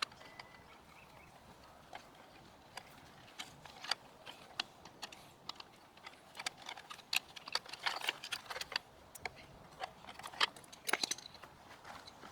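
Irregular small clicks, taps and rattles of hands working on a mobility scooter's controller: handling the circuit boards, their small wire connectors and screws. The clicks come thickest in the second half, with a sharp cluster near the end.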